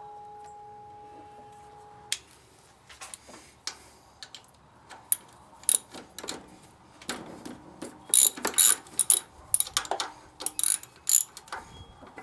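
A socket ratchet clicking in short bursts while bolts are worked loose on a truck's AC compressor mounting, with scattered metal clicks and taps between, loudest about eight seconds in. A faint metallic ring fades out over the first two seconds.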